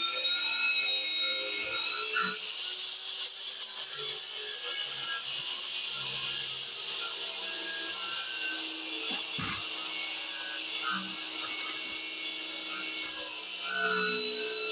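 Angle grinder with a wire brush running against a rusty steel pipe, a steady high whine that rises in pitch about two to three seconds in and then holds as it strips the rust.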